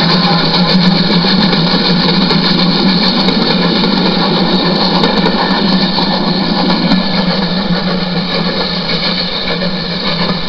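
A model railway train running past close by: the locomotive's small electric motor hums steadily, with its wheels rumbling on the track, and scattered light ticks. The rumble thins out after about seven seconds as the coaches roll by.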